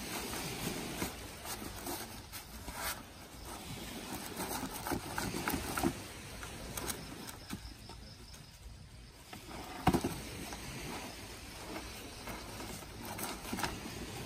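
A strap being pulled tight and wound around bamboo poles: rubbing and rustling with scattered small knocks, and one sharper knock about ten seconds in.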